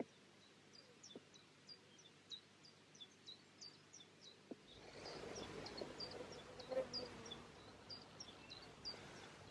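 Faint songbird singing in the distance: a long string of short, high, dropping notes repeated about twice a second. About halfway through, a low steady hiss of wind and outdoor background rises beneath the song.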